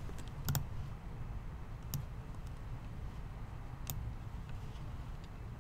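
A few sharp computer mouse clicks, spaced a second or two apart, over a faint low background hum.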